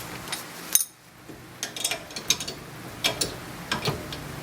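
Irregular metallic clicks and clinks of tools working the bolts that press a rear hub assembly out of its knuckle, a few separate clicks spread over the few seconds.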